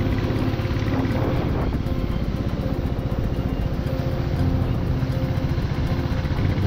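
Motorcycle engine running steadily at riding speed, with a continuous low pulsing exhaust note.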